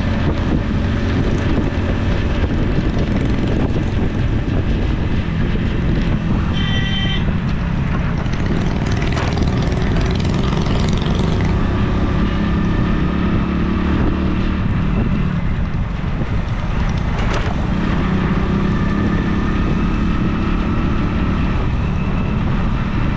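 Motorcycle riding along a road, heard from on the bike: a steady engine hum under a constant rush of wind and road noise. A short beep sounds about seven seconds in.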